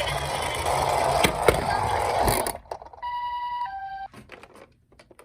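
Toy ambulance minicars rolling down a slope with a steady rattling rumble and a couple of knocks, stopping with a clatter about two and a half seconds in. Then one high-low 'pi-po' electronic siren tone from a toy ambulance, followed by a few small clicks.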